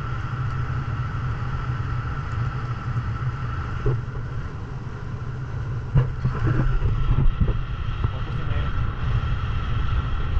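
Motorboat engine running steadily with a constant low rumble and a steady hum, as on a parasailing tow boat; brief indistinct voices about six seconds in.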